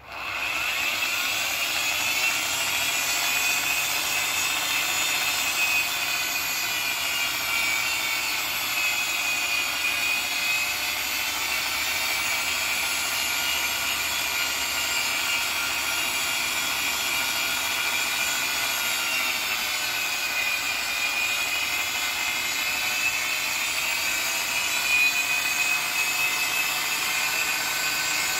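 Corded electric drill starting up and then running continuously, spinning a polishing pad against an aluminium scooter deck to polish it. Its steady motor whine rises and sags slightly in pitch as the load on the pad changes.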